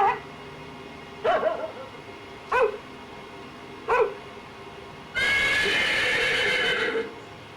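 Animal sound-effect samples played from a vinyl record on a 1975 GE Wildcat portable record player: four short dog barks evenly spaced about a second and a half apart, then one longer held animal call lasting about two seconds.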